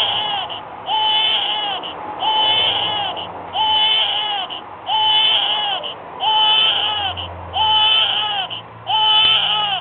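Baby doll's built-in electronic cry: the same short infant wail, rising then falling in pitch, repeats about once a second as a steady loop.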